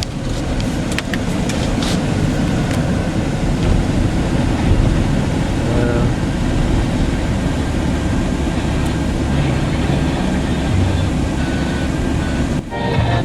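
Steady in-cab road and engine rumble from a 2009 Dodge Ram 5500 truck on the move, with a few light clicks in the first couple of seconds.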